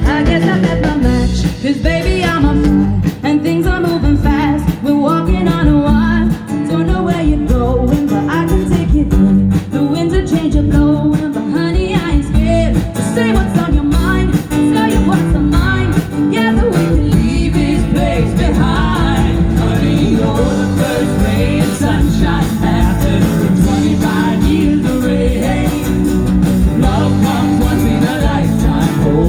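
Live band playing rock-and-roll, with guitars and a melodic line over the band.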